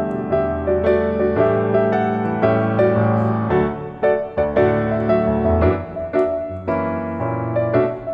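Piano music, a run of struck notes over held low notes.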